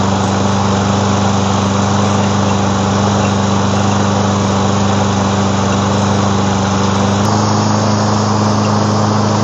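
Ariens self-propelled push mower's single-cylinder engine running steadily and smoothly, freshly started after sitting unused. About seven seconds in its note steps slightly higher.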